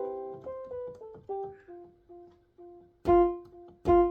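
GEM DSK 100 digital keyboard playing a chord that dies away, then single notes one at a time. Two notes about three and four seconds in are struck much harder and sound much louder, showing the repaired keys are touch-sensitive.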